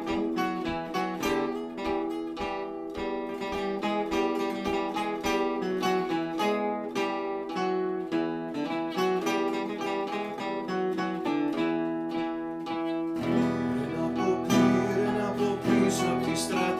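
Three acoustic guitars playing a rebetiko song together, picked melody notes over strummed chords. About thirteen seconds in, the strumming grows fuller and deeper.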